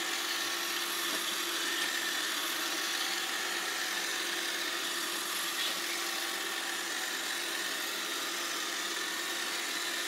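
iRobot Roomba robot vacuum running with a steady mechanical hum from its motors.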